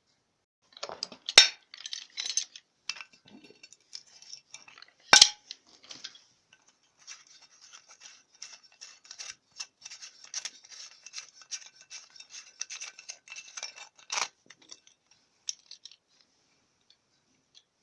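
Adjustable wrench working loose the flush-button fitting in a toilet cistern lid: a long run of fine scraping clicks, with sharp knocks about a second and a half, five and fourteen seconds in.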